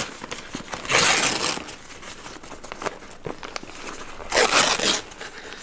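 Brown kraft-paper sleeve around a shipped orchid crinkling as the wrapped plant is handled and lifted, with two louder rustles, one about a second in and one near the end.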